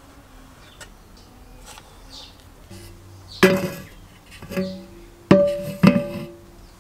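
An empty steel tin can knocked and set down four times, each knock ringing briefly with the can's hollow metallic tones, starting about halfway through.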